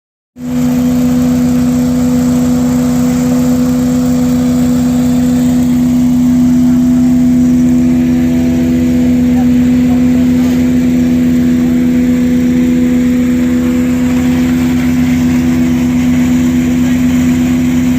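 Economy Drilling LKT800 hydro excavator running steadily: a loud, constant machine drone with a strong, steady pitched hum over a fast, even low pulsing. It starts about half a second in.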